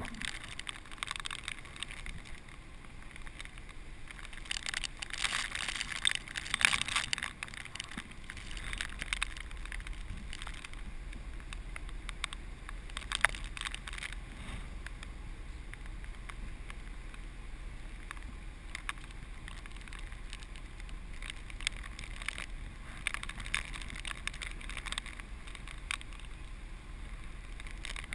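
Hurricane Sandy's storm wind gusting across the microphone: a rushing, crackling noise with sharp pops, heaviest about five to seven seconds in, over a low steady rumble.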